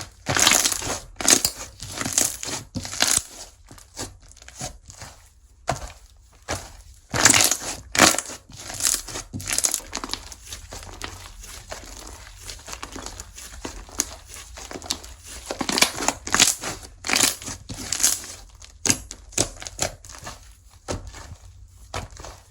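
Slime being squeezed, stretched and pressed by hand, giving irregular runs of sharp clicks and pops, densest about a second in, around seven to nine seconds in, and again near sixteen to eighteen seconds.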